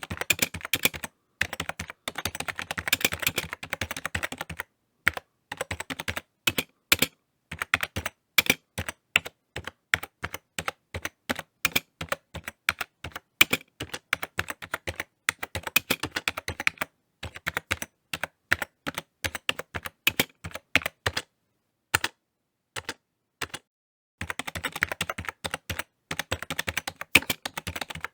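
Typing on a computer keyboard. A fast, dense run of keystrokes gives way to slower, spaced-out key presses with a few short pauses, and then another fast run near the end.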